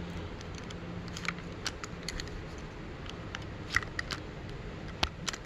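Scattered faint clicks and light scrapes of a knife blade working at a rubber rim strip, cut from an old inner tube, on a spoked dirt bike rim, as a hole is cut through the strip; one sharper click about five seconds in.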